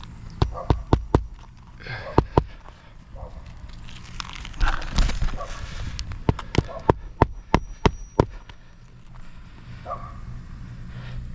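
Hammer driving roofing nails into an asphalt shingle: a few sharp strikes near the start, two more a little later, then a steady run of about eight strikes at roughly three a second in the second half.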